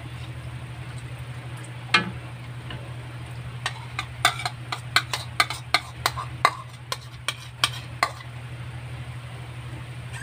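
Metal spoon stirring and clinking against a wok and a bowl as a curry sauce is poured over chicken and potatoes: one sharp clink about two seconds in, then a quick run of clinks and scrapes for a few seconds. A steady low hum runs underneath.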